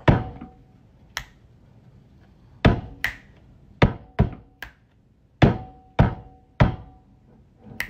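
A series of sharp knocks, about ten of them at uneven spacing, some falling in quick pairs.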